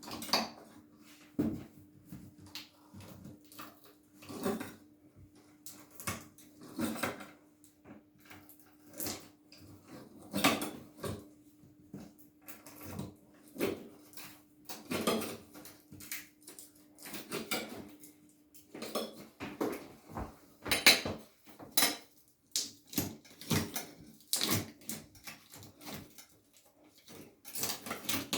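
Metal blades scraping and prying at thick silicone sealant behind a chrome shower valve front plate: short, irregular scrapes and clicks, about one every second or two.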